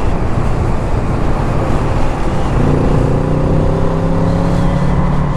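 Parallel-twin motorcycle engine running at road speed under heavy wind rush on a helmet-mounted microphone; about halfway through its note comes up and rises slowly as the bike accelerates.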